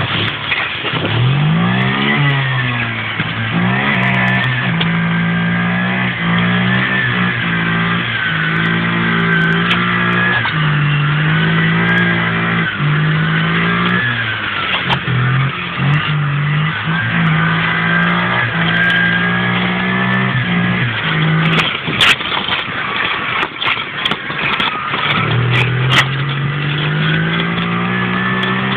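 Romet Zetka 50 motorcycle engine pulling a sled through snow, revving with its pitch climbing and dropping again and again as the throttle changes. A few sharp clicks sound over it in the last third.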